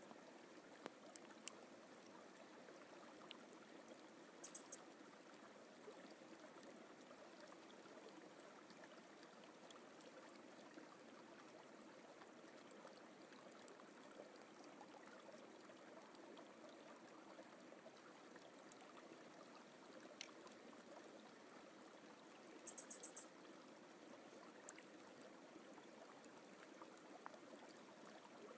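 Faint, steady rushing of a forest stream. A brief cluster of high-pitched chirps cuts in twice, once about four seconds in and again about two-thirds of the way through.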